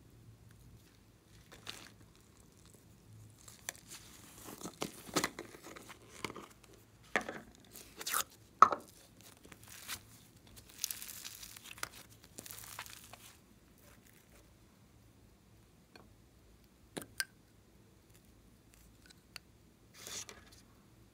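Soft modelling clay being pulled and torn apart by hand, giving tearing, crinkling noises with sharp clicks, bunched between about four and thirteen seconds in; a few single clicks and a short rustle follow near the end.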